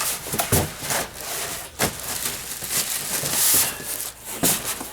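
Cardboard shipping box being opened and handled on the floor: rustling and scraping of cardboard and packing, with a few sharp knocks.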